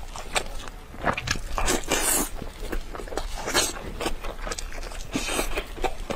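Close-up eating sounds of a person biting and chewing meat off a glazed braised rib: irregular clicks and smacks, with a few longer hissy sounds.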